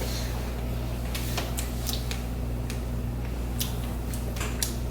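Steady low hum with a few scattered light clicks and taps.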